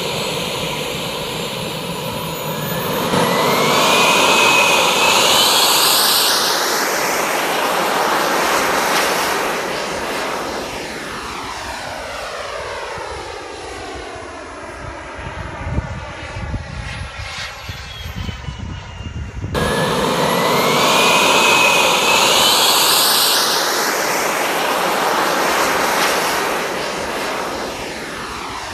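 Model jet's Jets-Munt M70XBL turbine flying past: a high whine that swells and rises in pitch as the jet approaches, then sinks and fades with a sweeping, whooshing sound as it goes by. The pass is heard twice, the second starting abruptly about two-thirds of the way in.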